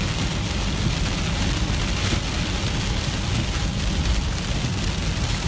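Steady road noise inside a moving car, a low rumble under an even hiss.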